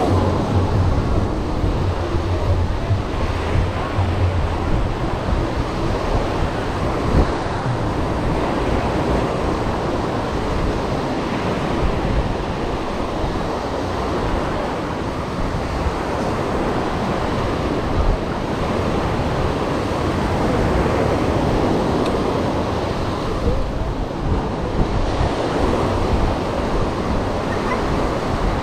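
Ocean surf washing steadily onto the beach, with wind buffeting the microphone in a low rumble that is strongest in the first few seconds.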